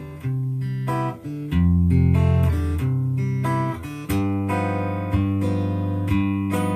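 Handmade 3/4-size acoustic guitar, amplified through an LR Baggs Element-VTC under-saddle pickup and a Crate acoustic amp, played fingerstyle: a short tune of plucked melody notes over ringing bass notes.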